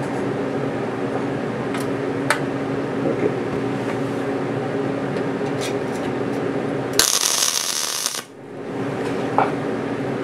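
Steady shop hum with a few light clicks and taps on sheet metal, then about seven seconds in a MIG welder fires a short tack weld, a loud hissing crackle lasting about a second that stops suddenly. It is filling a pre-drilled hole in the steel guard as a home-made weld 'rivet'.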